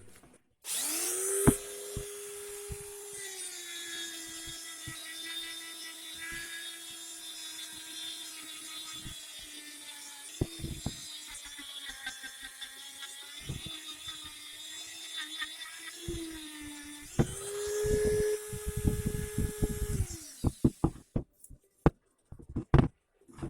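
Small electric power tool running. Its motor note drops and holds lower while it works under load, then rises again when the load comes off about seventeen seconds in. It is switched off a few seconds later, and scattered knocks and clatters follow near the end.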